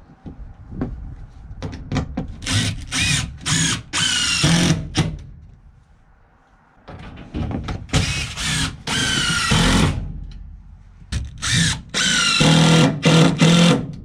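DeWalt cordless impact driver driving screws down into OSB floor panels, in three long runs with a whine that rises as the motor spins up, and short pauses between the screws.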